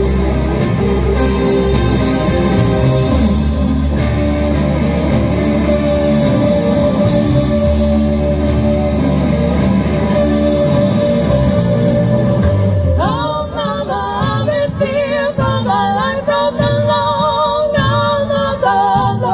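Live rock band playing: guitars, keyboard and drums in a steady groove. A lead vocal comes in about two-thirds of the way through.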